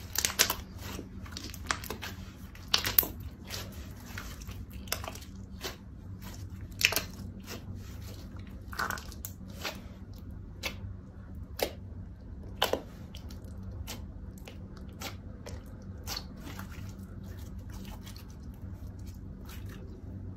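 Slime being squeezed, kneaded and stretched by hand, making irregular wet clicks and pops. They come thickest in the first few seconds and more sparsely after that, over a low steady hum.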